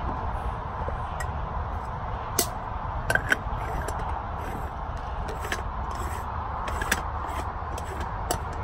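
Light metallic clicks and clinks from an aluminium stovetop moka pot as its parts are handled and the top chamber is screwed onto the base. The clicks are scattered and come a few at a time, over a steady background rumble.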